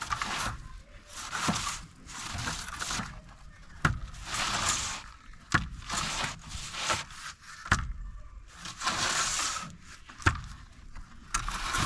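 Wet plaster being worked onto a masonry wall with a trowel: a run of repeated scraping strokes, each under a second, with sharp taps of the tool in between.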